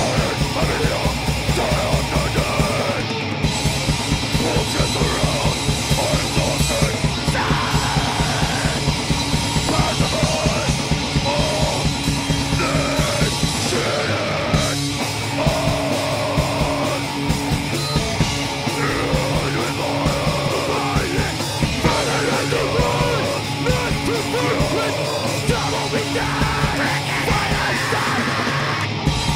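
A powerviolence band playing live: fast, dense drumming under distorted guitars and bass, with a yelled vocal over the top.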